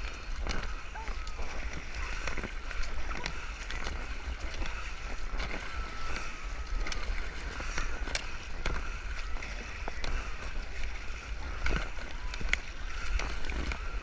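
Kayak paddles dipping and splashing in sea water beside an inflatable kayak, with sharp splashes at irregular moments over continuous water noise and a low rumble on the microphone.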